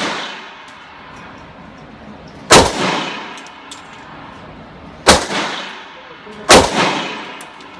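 Sig Sauer 1911 Nickel Rail pistol firing .45 ACP Federal Perfecta rounds: three shots, about two and a half seconds apart and then a quicker one, each followed by a ringing echo off the range walls.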